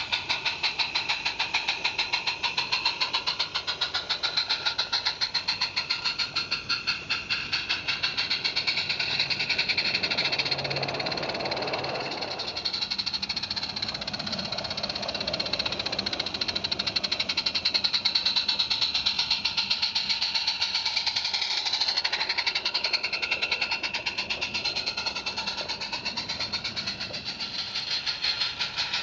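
Roundhouse Jack 0-4-0 live-steam garden railway locomotive running under steam, its exhaust beating in a rapid, even chuff.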